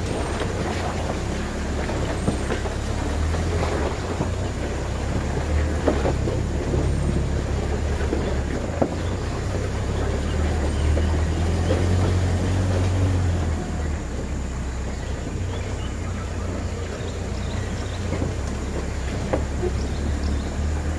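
Four-wheel-drive pickup truck's engine running under load on a rough dirt track, with wind noise and occasional sharp knocks from the truck body over bumps. The engine drone grows louder about halfway through, then drops off about two-thirds of the way in.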